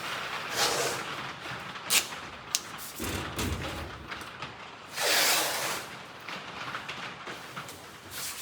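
Hands working with parts and tools: rustling, a couple of sharp clicks, and about five seconds in a loud, short rasp like masking tape being pulled off the roll.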